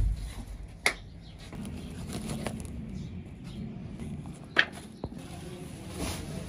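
Workers handling heavy sacks of detergent powder at a metal mixing trough: a few sharp knocks against the trough, over a low steady hum that starts about a second and a half in. Near the end comes a short hiss as light soda ash begins to pour from the sack into the trough.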